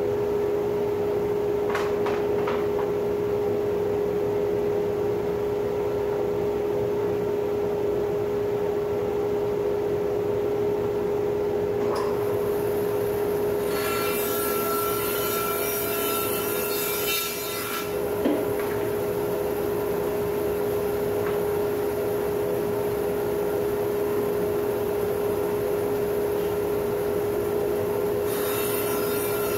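A 2.5-horsepower Laguna 14BX bandsaw runs with a steady hum while resawing plum wood. The blade's cutting hiss swells for about four seconds around fourteen seconds in, and again near the end.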